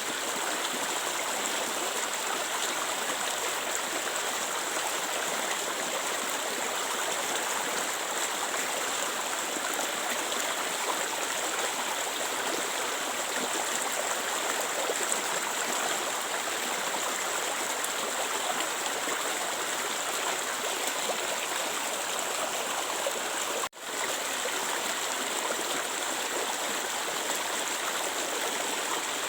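Clear stream water flowing and burbling steadily, a constant rushing hiss. The sound cuts out for an instant about four-fifths of the way through, then carries on unchanged.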